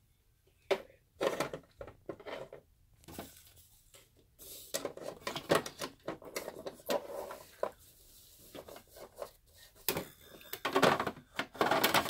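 Small plastic dollhouse furniture being handled and set down in a plastic Fisher-Price dollhouse: irregular light clicks and clatters of plastic on plastic, thickest near the end.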